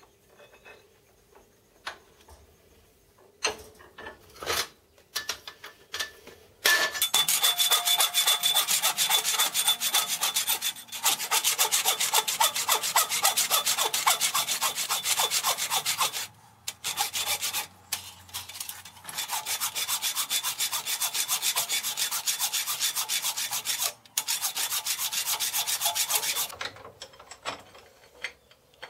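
Hand file rasping across a metal casting clamped in a bench vise, cleaning rough edges off the casting. A few light knocks and handling clicks come first. The loud, steady filing starts about seven seconds in and runs for some twenty seconds, with a few short breaks between strokes.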